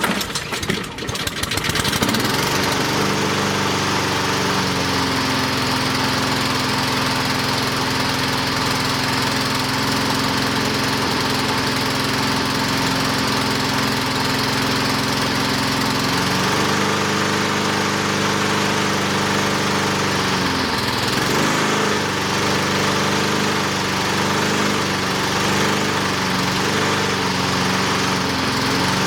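Honda HRR216 walk-behind lawnmower engine sputtering and catching again in the first two seconds, then running steadily at speed. Its pitch shifts a few times, dipping about two-thirds of the way through and again near the end, on its first start after winter storage, when it runs less well than it used to.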